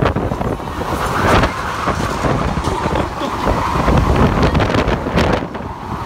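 Strong gusts of wind buffeting the phone's microphone: a loud, uneven rumble that swells and drops with each gust.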